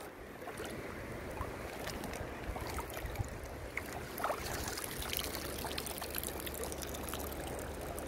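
Sea water swishing and trickling as a mesh fish trap is hauled up by its rope through shallow water, with faint clicks and a low rumble under it.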